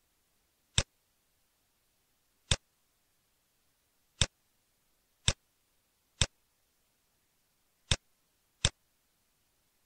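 Computer mouse clicking: seven sharp single clicks at uneven intervals.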